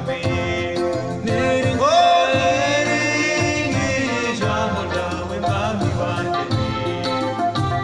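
Live gospel worship music: electronic keyboard accompaniment with male voices singing. About two seconds in, one note slides up and is held for a second or so.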